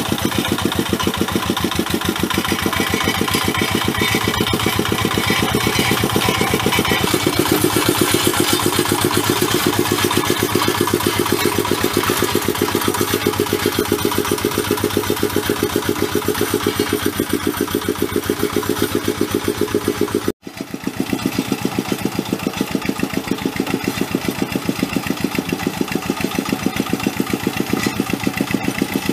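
Single-cylinder diesel engine of a two-wheel hand tractor chugging steadily under load as it plows deep paddy mud. The sound breaks off for an instant about twenty seconds in, then carries on.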